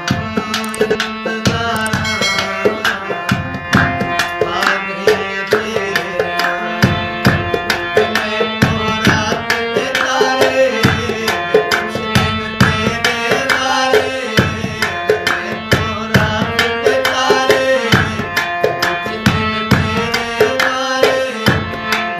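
Harmonium playing a melody over a held drone note, with drum accompaniment striking a steady rhythm; no singing yet.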